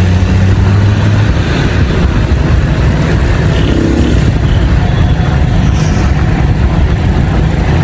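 Steady noise of a vehicle moving along a road: engine running under a loud rush of road and wind noise.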